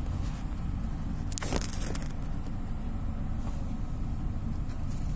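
A few sharp metal clinks of hand tools and bolts during work on a car's lower ball joint, about one and a half to two seconds in, over a steady low rumble.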